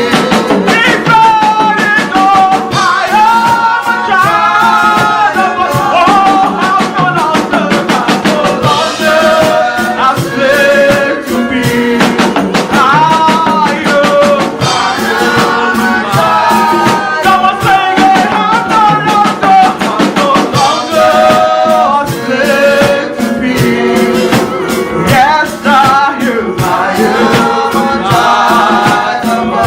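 Live worship music: singers with a band and drum kit playing a congregational worship song.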